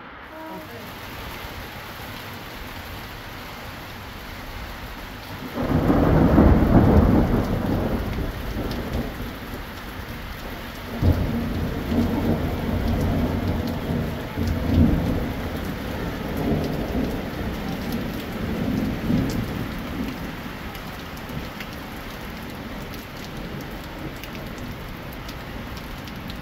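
Steady rain with thunder: a long low rumble about six seconds in, then a sharp crack near eleven seconds followed by rolling rumbles that fade out.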